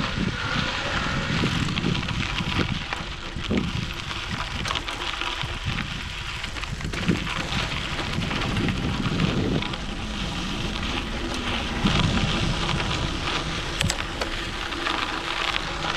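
Wind buffeting the microphone while riding a bicycle, with crackling road noise from the tyres. The gusts rise and fall unevenly.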